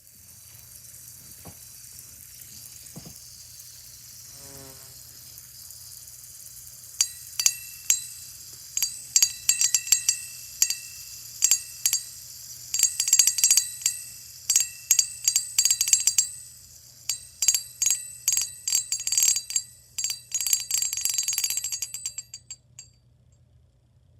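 Repeated sharp metallic clinks, each ringing briefly, start about seven seconds in and come in irregular clusters until near the end, over a steady high hiss. The clinks come from small hard toys knocking together.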